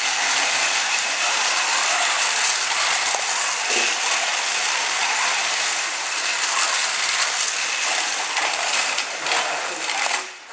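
Mecanum-wheel robot drivebase driving on carpet: its drive motors and gearboxes run with a dense mechanical rattle, which drops away just before the end.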